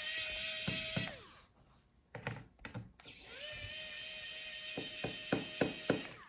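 Small electric screwdriver backing out a laptop's bottom-case screws: its motor whines, rising in pitch as it spins up. It stops about a second in, then runs again from about three seconds in for about three seconds, with a series of sharp clicks near the end of the second run.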